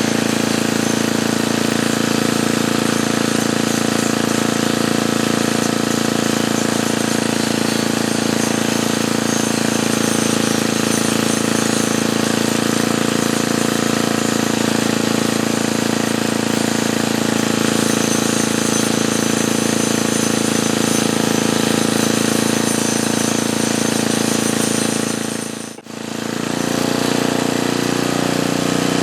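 An engine running steadily at a constant speed. It cuts out abruptly for a moment near the end, then comes back at a slightly different pitch.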